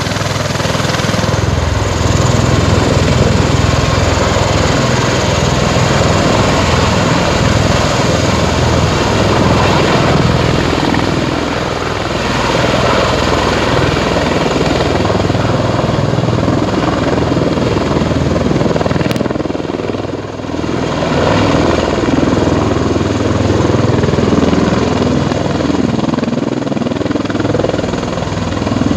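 Bell Boeing V-22 Osprey tiltrotors in helicopter mode, their two big proprotors and Rolls-Royce T406 turboshaft engines running loud and steady as the aircraft hovers low and sets down, with a low rotor throb underneath. The sound dips briefly about twenty seconds in.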